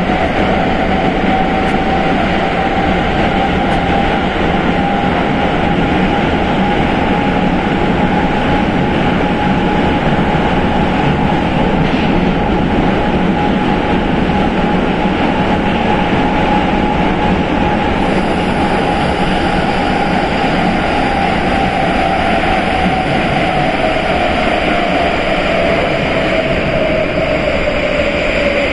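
Prague Metro line B train (81-71M) running through the tunnel: steady wheel and running noise with a clear motor whine that climbs slightly, holds, then drops in pitch over the last several seconds as the train slows.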